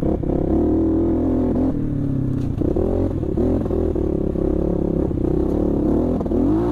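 Raptor 300R dirt bike's engine running under load on a rocky trail, its revs rising and falling, with the bike clattering over loose stones.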